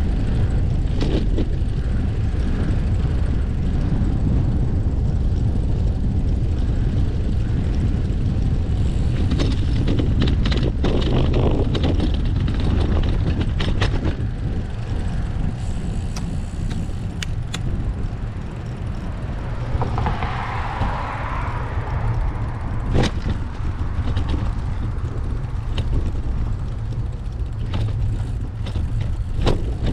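Wind rumble on a GoPro Hero9's microphone while cycling, with scattered sharp clicks and rattles from the bike. A brief rushing swell comes about two-thirds of the way through.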